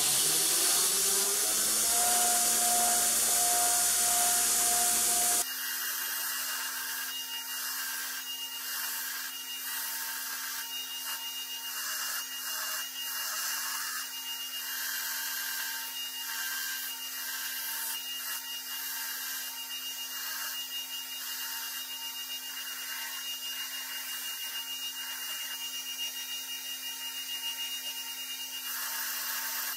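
Belt grinder motor spinning up, its pitch rising over about two seconds and then holding steady. After an abrupt change it runs steadily while a forged steel axe head is pressed to the belt in short, uneven passes, grinding the steel.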